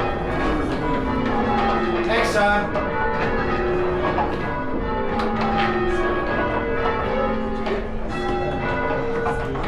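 Church bells change ringing: a steady run of bell strikes, one after another, with each bell's tone ringing on under the next.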